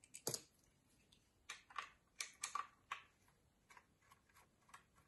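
Faint irregular clicks and short scrapes of a screwdriver turning screws out of the steel case of a Mottura lever mortise lock, several in a few seconds, with the lock body shifting in the hand.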